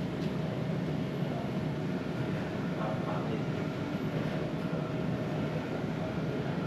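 Steady low mechanical hum of room background noise, with a faint steady tone above it.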